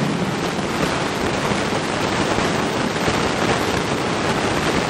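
Steady, even rushing noise with no speech: the background noise of the room as picked up through the microphone.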